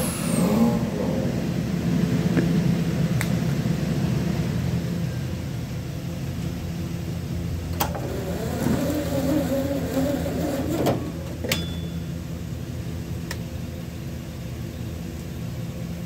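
A Butler truck-mounted carpet-cleaning unit's engine running steadily, with a few sharp clicks.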